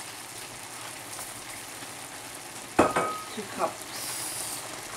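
Pan of linguine and little neck clams in a butter and white-wine sauce sizzling steadily on the heat. A utensil knocks and scrapes in the pan as the pasta is stirred, loudest about three seconds in.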